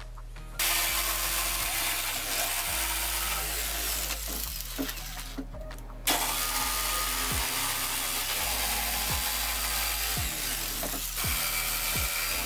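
Bosch jigsaw cutting through a pine board, its blade sawing steadily. It starts about half a second in, cuts out for under a second around five seconds in, then runs again.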